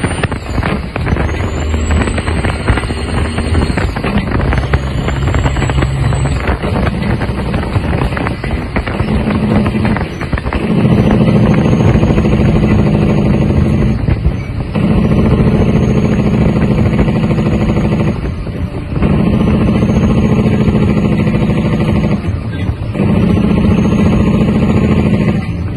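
Heavy truck's diesel engine heard from inside the cab, pulling under load through the gears. In the second half it pulls for about four seconds at a time and drops briefly at each upshift, four times. A faint high whine rises with each pull.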